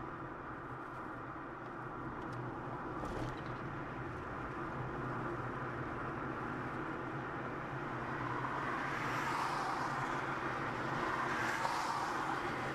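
Steady road vehicle noise, a low hum under a hiss, with two louder swells like vehicles going by in the second half.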